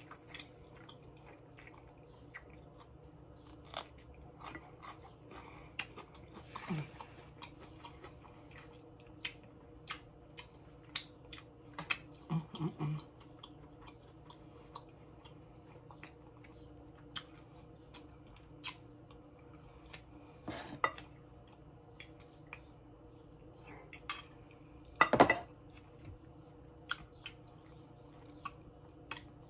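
A person eating baby back ribs close to the microphone: chewing and mouth clicks with occasional clinks of tableware. Short sharp sounds come every second or so over a faint steady hum, with a few louder bursts, the loudest about 25 seconds in.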